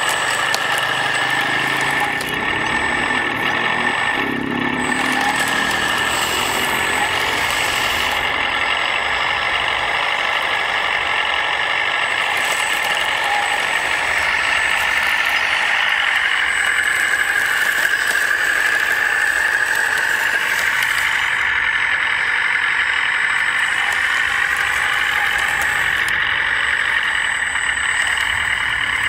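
1/14-scale RC trucks and construction machines running: a steady whine of small motors with engine-like truck noise, wavering up and down in pitch as the machines work.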